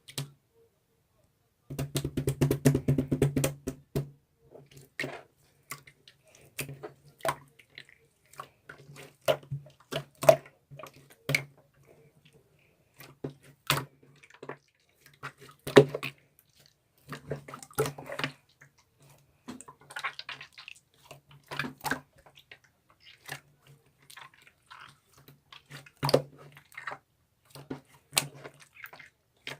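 Slime being squished, poked and stretched by hand, making irregular wet clicks and pops, with a dense run of crackling about two seconds in.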